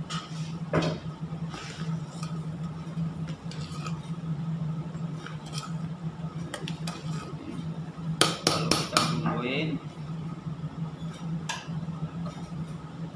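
Metal ladle stirring a large stainless steel stockpot of boiling sauce, with scrapes and clinks against the pot and a quick run of sharp clanks about eight seconds in. A steady low hum runs underneath.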